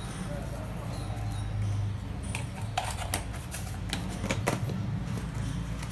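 Several sharp clicks and taps of plastic spice containers and their lids being handled on a kitchen counter, over a steady low hum.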